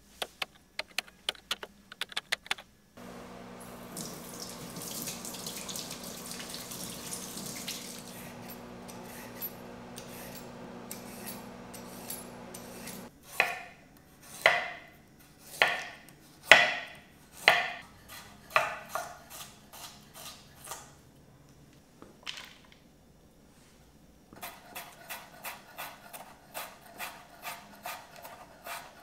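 Kitchen work sounds: a few quick clicks, then a tap running for about ten seconds, then a string of loud ringing clinks of dishes or pans about a second apart, and near the end a quick regular tapping, about two or three a second.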